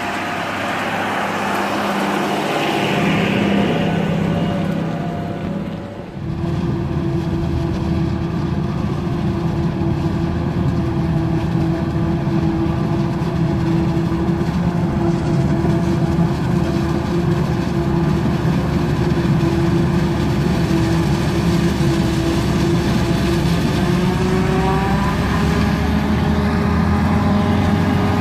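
A tractor pulling a silage trailer drives past, then, after a break about six seconds in, the steady engine of a Claas Jaguar self-propelled forage harvester chopping standing maize for silage. The harvester's engine note rises slightly in pitch near the end.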